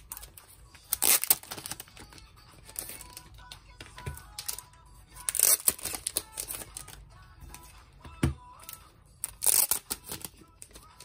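Plastic-wrapped card packs crinkling and clicking as they are handled and set down on a wooden table, in three loud bursts about four seconds apart with small clicks in between. Faint background music runs underneath.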